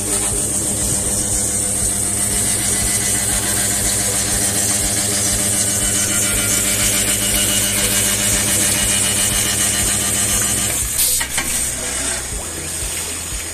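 Electroweld 100 kVA longitudinal resistance seam welder welding a steel drum seam: a steady electrical hum with a rapid pulsing and a sizzle from the water-cooled weld. The hum stops with a click about eleven seconds in, leaving running cooling water.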